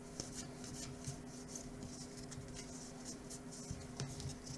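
Baseball trading cards flipped through by hand, with soft scratching and sliding of card against card and light ticks as each card is moved to the back of the stack. A faint steady hum runs underneath.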